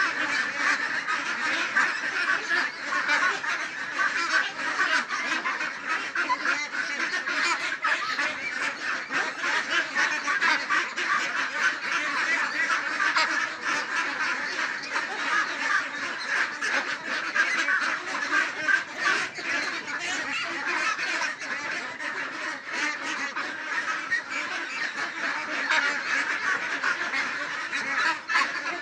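A large flock of farmed ducks in a pen quacking all at once, a continuous dense chorus of overlapping calls with no pauses.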